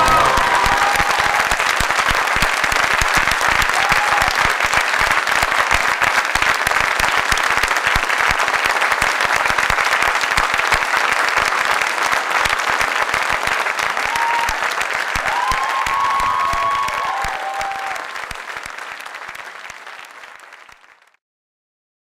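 Theatre audience applauding, with a few brief voices calling out now and then. The clapping fades away over the last few seconds and stops just before the end.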